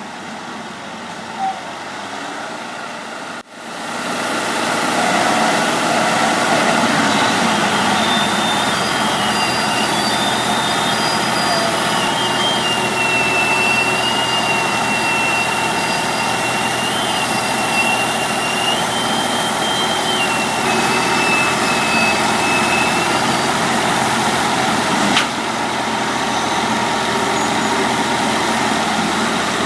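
Heavy machinery's diesel engines running steadily, with a high wavering whine above them for much of the time.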